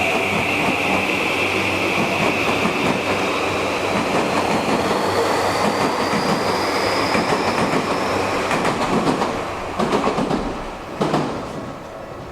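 Tokyu Oimachi Line electric train pulling away, its VVVF inverter whine rising steadily in pitch. Wheels then clatter over rail joints with a sharp knock about eleven seconds in, and the sound fades as the train moves off.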